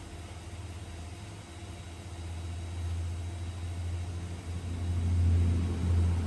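A vehicle engine running, a low rumble that swells louder near the end.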